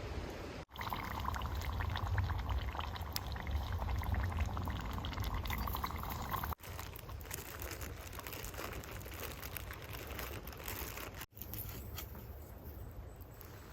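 Water pouring into a container, broken twice by brief silent gaps.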